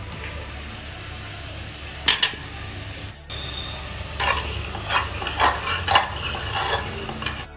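A steel spoon stirring pork and potato pieces in a metal pot, clinking and scraping against the sides, over the low sizzle of frying. There are a couple of sharp clinks about two seconds in, then a run of clinks and scrapes from about four seconds until near the end.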